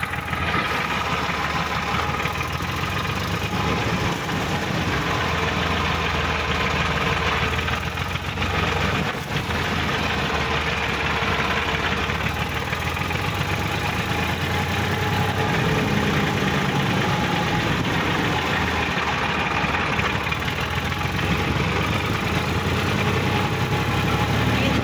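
Sonalika DI-50 RX tractor's diesel engine running steadily while the tractor is driven along, heard from the driver's seat.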